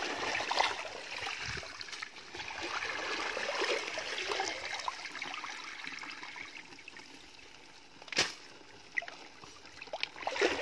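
Muddy water trickling and sloshing as a woven mesh basket sieve is worked in shallow water, with a single sharp click about eight seconds in.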